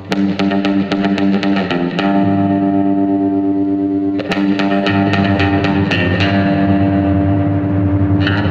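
Music with a distorted guitar and bass, steady picked or strummed notes throughout.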